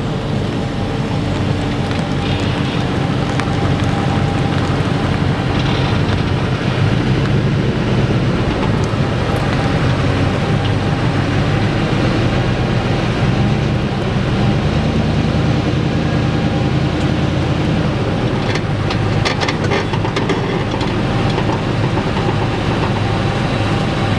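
Nissan Titan pickup's engine running steadily as the truck slowly backs up toward a trailer hitch.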